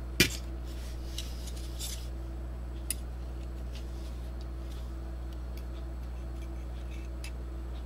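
Small clicks and taps of a slim DVD drive's metal and plastic parts being handled during reassembly, with one sharper click just after the start and a few faint ones after it. A steady low electrical hum runs underneath.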